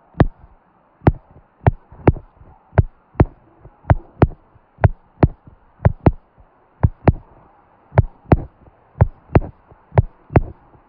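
A series of about twenty sharp taps, irregular and often in close pairs, roughly two a second.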